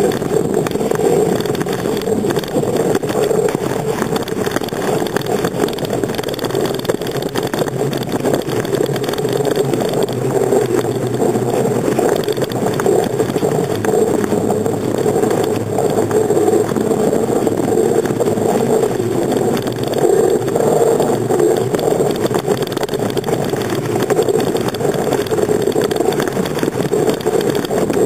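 Steady road noise of a bicycle ride picked up by a camera mounted on the handlebars: tyres rolling on asphalt and the bike's frame vibrating.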